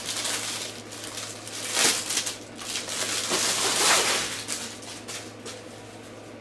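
Rustling and crinkling of packaging as a parcel and its contents are handled, in irregular surges loudest about two seconds and four seconds in, dying down near the end.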